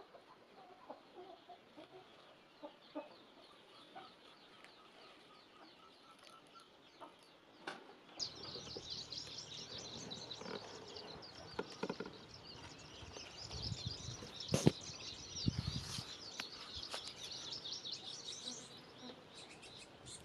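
Birds chirping and calling. A dense, busy chatter of chirps sets in about eight seconds in, with a few low thuds and one sharp click partway through.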